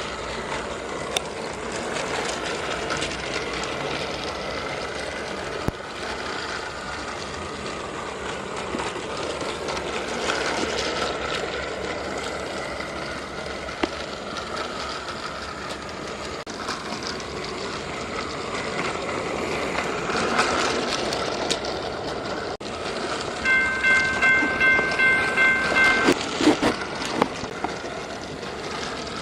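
Motorised toy train running along plastic track, a steady whirring clatter with occasional clicks. Near the end it gives a rapid series of electronic horn beeps, about three a second.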